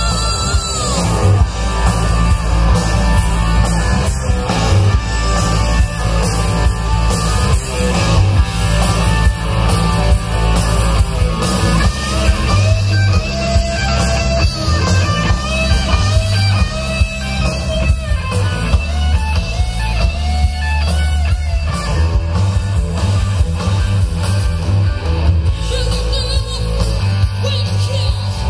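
Live rock band playing loudly on an open-air stage: electric guitars over drums, with a heavy, booming bass.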